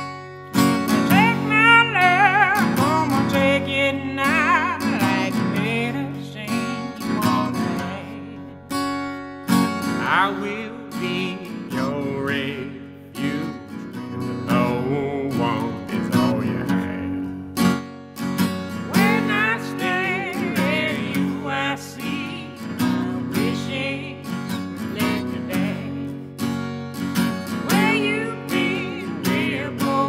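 Acoustic guitar strummed steadily with a woman and a man singing a slow song in duet.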